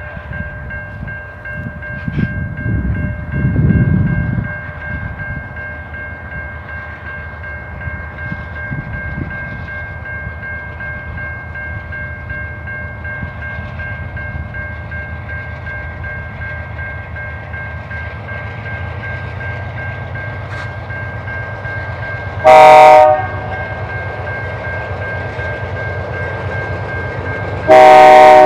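CN diesel freight train approaching from a distance with a low steady rumble. Its locomotive air horn sounds a short blast about 22 seconds in, then a longer blast near the end.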